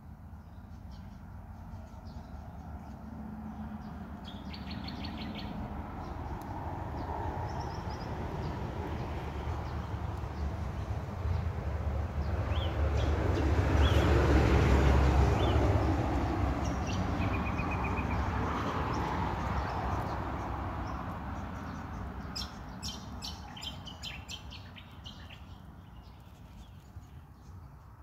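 Birds chirping with short, scattered calls, while the noise of a passing vehicle swells slowly to a peak about halfway through and then fades away.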